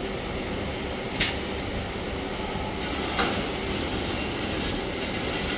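Flat-frame (ladder) mesh welding machine running with a steady machine noise, with two sharp metallic clacks about two seconds apart from its cross-bar feed and welding cycle.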